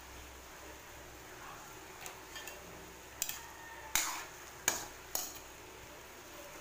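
A cooking utensil stirring sliced okra in a wok, knocking and scraping against the pan: a few light clicks, then several sharper knocks between about three and five and a half seconds in, the loudest about four seconds in, over a faint steady hiss.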